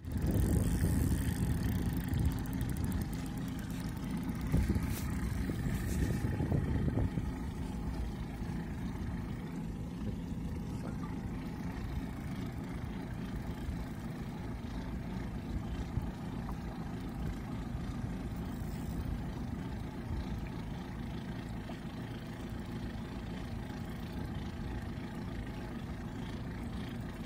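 Mariner 60 outboard motor running steadily, a bit louder for the first seven seconds or so, then settling to an even, slightly quieter run.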